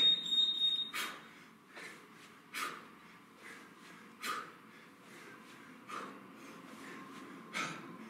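An interval timer beeps once, a high steady tone just under a second long, marking the start of a 20-second work interval. Then a man exhales sharply in time with two-hand kettlebell swings: five forceful breaths about every second and a half, with lighter breaths between.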